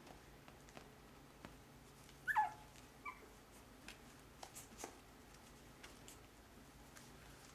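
A 5.5-week-old Shih Tzu puppy gives a short yelp that falls in pitch about two seconds in, then a briefer, fainter yip about a second later. A few light clicks and taps are scattered through the rest.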